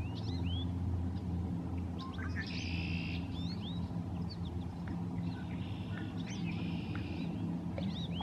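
Small songbirds chirping and singing: short whistled notes that slide up and down, with two buzzy trills about two and a half and six and a half seconds in. A steady low hum runs underneath and is louder than the birds.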